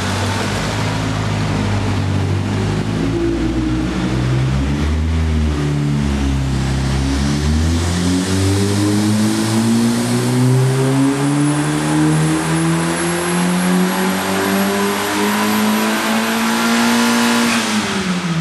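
Turbocharged Honda H23A1 2.3-litre four-cylinder, with a T3 Super 60 turbo at about 6 psi, making a wide-open-throttle pull on a chassis dyno. After some seconds at lower, unsteady revs, the engine note climbs steadily in pitch for about ten seconds with a thin high whistle rising along with it. Near the end the throttle closes and the pitch drops sharply.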